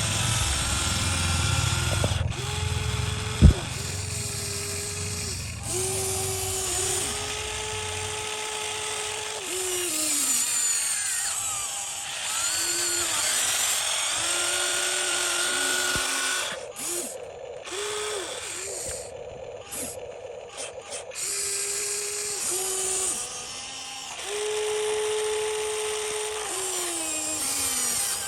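Small electric motors of radio-controlled construction models whining in repeated stop-start stretches, their pitch rising as each one spins up and falling as it stops. There is a low rumble for the first several seconds and one sharp knock about three and a half seconds in.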